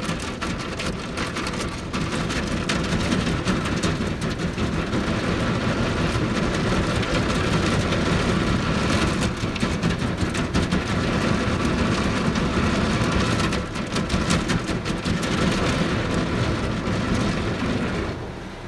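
Automatic car wash brushes and water spray beating on the car's body and rear window, heard from inside the cabin as a loud, continuous wash noise. It drops away sharply near the end as the car leaves the wash.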